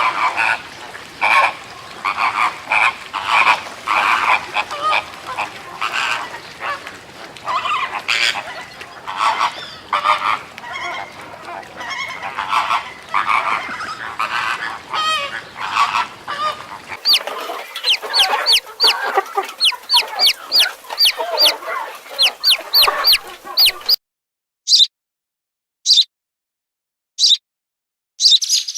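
A flock of large birds calling together, a dense mix of honks and clucks over a steady hiss. About 17 seconds in it cuts to a small bird chirping rapidly and high. Near the end it gives single chirps with silent gaps between them.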